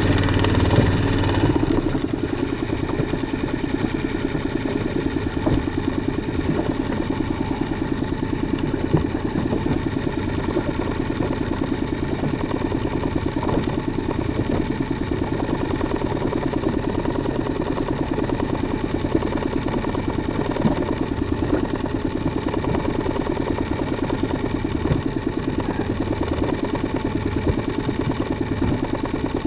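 Outboard motor idling at slow trolling speed: a steady running sound with a fast, even pulse.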